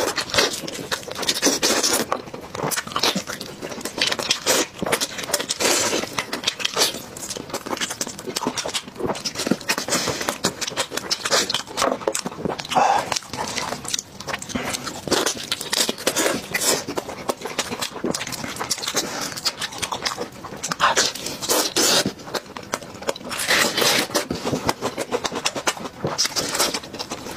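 A person eating close to the microphone: dense, irregular wet chewing and mouth noises, with short smacking bursts every second or so.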